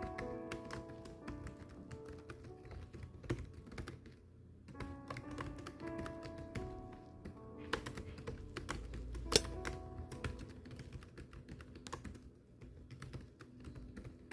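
Typing on a keyboard: quick, uneven runs of key clicks with brief pauses, one stroke louder about nine seconds in, over background music with held notes.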